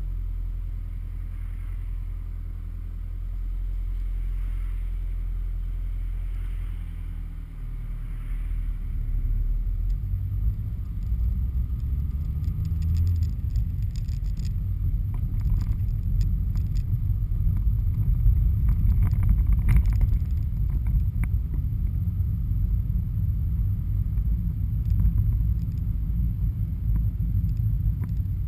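Car engine idling, heard from inside the cabin, then pulling away about eight seconds in; from then on a louder, rougher low rumble of engine and tyres on the road, with a few light rattles and knocks.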